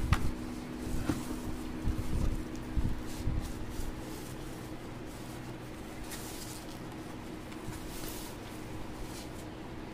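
Thin plastic wrapping and a cardboard box handled around a motorcycle helmet: a few dull knocks in the first few seconds, then short crinkling rustles of plastic about six and eight seconds in, over a steady low hum.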